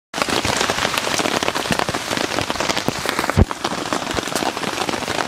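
Rain falling on a tarp shelter: a dense, steady spread of small drop hits, with one louder hit about three and a half seconds in.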